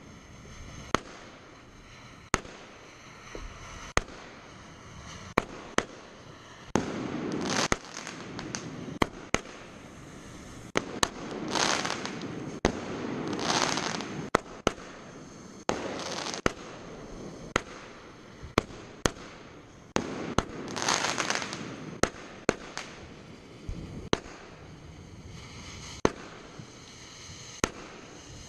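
Fireworks display: aerial shells bursting in sharp bangs at irregular intervals, one every second or so. Four longer hissing stretches of about a second each are mixed in.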